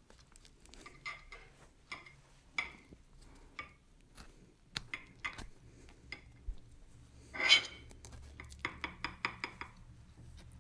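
Table knife cutting through a sandwich on a plate: scattered light clinks and scrapes of the blade against the plate, a longer scrape about seven seconds in, then a quick run of small taps.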